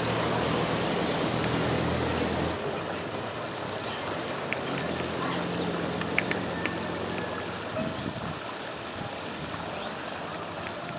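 A motor vehicle's engine hums for the first two or three seconds, then a small creek runs over rocks, with a few short bird chirps in the middle.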